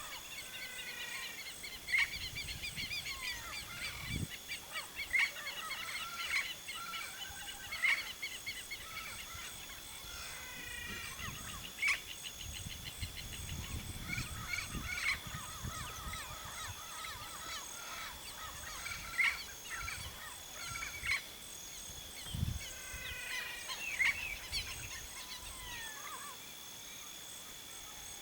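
Turquoise-fronted parrots (Amazona aestiva) giving sharp, loud calls every few seconds over a busy chorus of smaller birds chirping and trilling. A steady high-pitched tone runs underneath.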